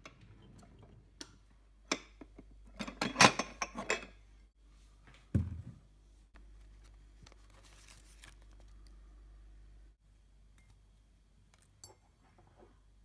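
Kitchen handling sounds: a drawer pulled open and ceramic mugs clinking and clattering as one is taken out, then a single dull knock as the mug is set down. A few light ticks follow as a tea bag goes into the mug.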